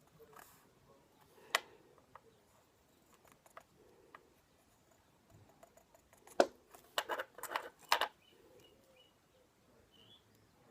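Small clicks and taps from handling felt-tip pens and a plastic fidget spinner while colouring: one sharp click, a few light ticks, then a quick run of sharper clicks.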